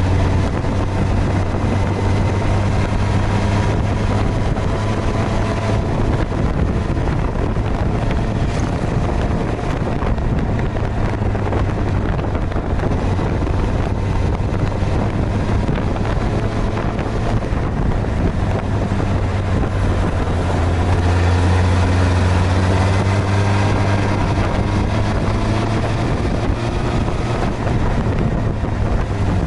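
Suzuki GSX-R1000R's inline-four engine running under way, its pitch rising and falling with the throttle, with wind rushing over the microphone.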